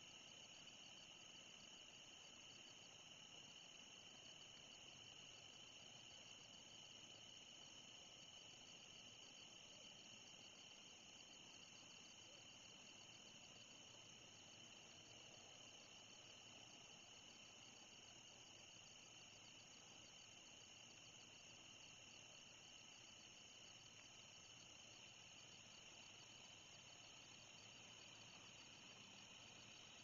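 Faint, steady, high-pitched chorus of night-singing insects such as crickets.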